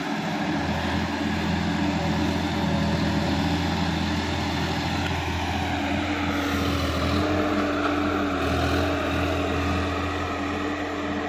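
Sonalika DI-50 tractor's diesel engine running steadily as it works through a flooded paddy field, its note shifting about six seconds in.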